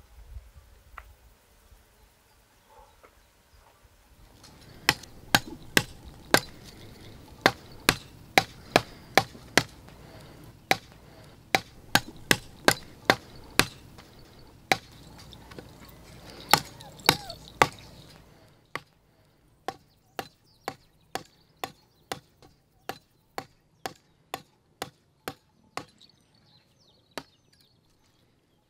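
A knife chopping on a cutting board in a steady run of sharp strokes, about two to three a second. After about 18 seconds the strokes become lighter and slower, about two a second, and they stop near the end.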